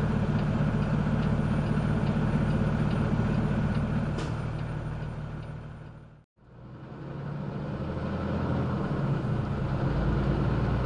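A truck's engine running steadily with road noise, heard from the camera truck's cab. About six seconds in it fades out to silence and fades back up to the same kind of steady engine drone.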